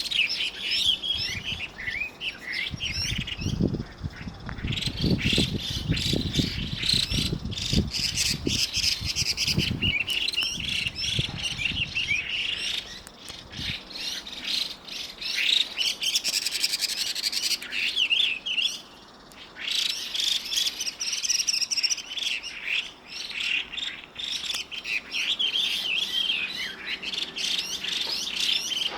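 Chinese hwamei singing: a long run of rapid, varied whistled phrases, gliding up and down in pitch, with brief pauses about 3 seconds in and near 19 seconds. A low rumble runs beneath the song from about 3 to 13 seconds in.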